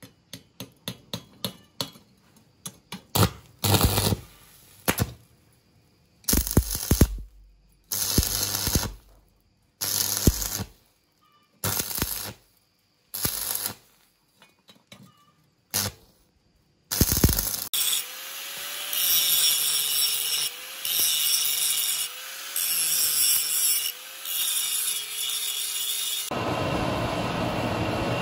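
Power-tool metalworking: a quick run of light knocks, then about eight short separate bursts of power-tool noise with silent gaps between them. A longer steady stretch follows with a wavering whine, and near the end a louder steady rushing noise.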